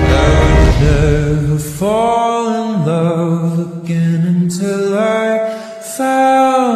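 Song with a singing voice holding long, sliding notes; the bass drops out about two seconds in, leaving the voice nearly bare over light accompaniment.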